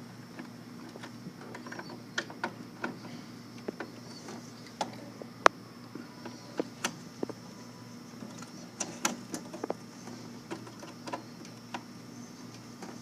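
Scattered small clicks and taps of plastic terminal connectors being handled and pressed onto a PLC controller, the sharpest one about five and a half seconds in, over a steady low hum.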